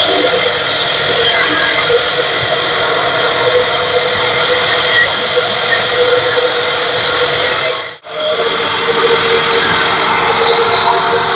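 An 18-inch bandsaw runs steadily while its blade saws lengthwise through a thick wood block. The noise drops out for a moment about eight seconds in, then carries on.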